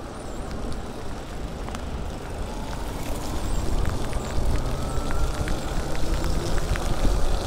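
Wind on the microphone and tyres on wet pavement as an e-bike rides in the rain, growing louder as it gathers speed. A faint rising motor whine comes in from about two and a half seconds, and raindrops tap now and then on the camera.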